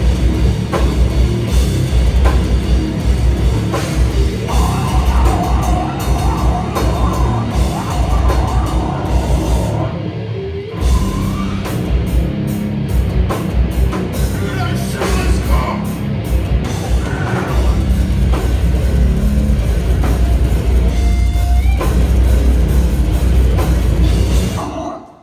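Slam death metal played live by a full band, with a drum kit and heavy guitars at full volume. There is a brief break about ten seconds in, and the sound stops abruptly near the end.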